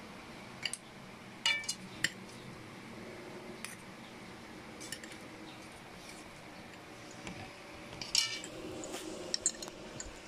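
Fork and spoon clinking and scraping against a plate while eating, in scattered sharp clinks, with a cluster about a second and a half in and another near the end.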